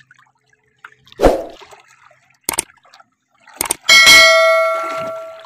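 A loud knock about a second in and a few sharp clicks, then a loud metallic clang about four seconds in that rings with several tones and dies away over about a second and a half.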